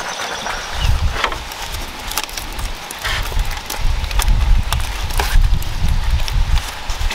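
Scattered clicks and light knocks of bamboo trellis poles being handled and tied together with strips, over an uneven low rumble.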